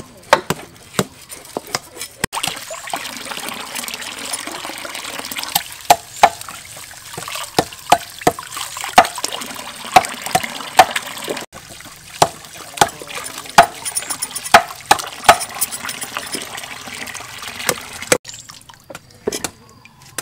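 A few knife chops on a wooden chopping block. Then a stream of water pours into a metal basin of small green eggplants and baby corn as hands wash them, with frequent knocks and splashes. The pouring stops near the end.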